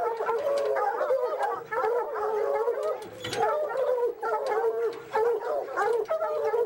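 A pack of Walker hounds baying at a tree: many drawn-out, overlapping calls with no break, the sound of hounds barking treed.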